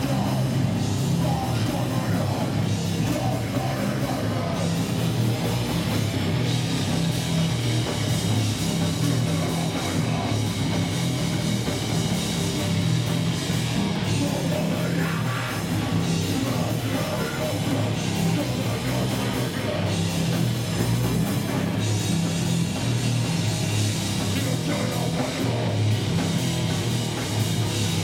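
Grindcore band playing live: loud, continuous guitars, bass guitar and drum kit.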